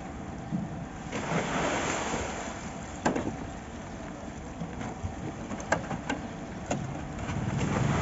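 Building-site sounds during a concrete pour: a rushing, scraping noise about a second in that lasts a second or so, then a few sharp metal clanks. These come from steel wheelbarrows of wet concrete being pushed, tipped and set down.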